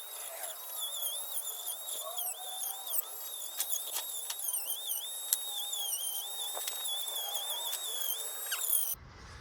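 Small handheld electric power tool sanding, its motor whining at a high pitch that dips briefly again and again as the tool is pressed into the work, with a few sharp clicks.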